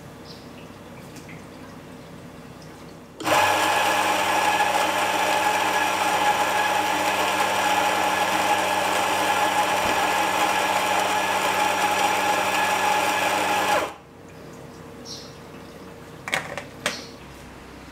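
Anfim Scody II coffee grinder running and grinding an espresso dose into a dosing cup. It makes a loud, steady whir that starts sharply, runs for about ten seconds, then cuts off. A few light clicks follow near the end.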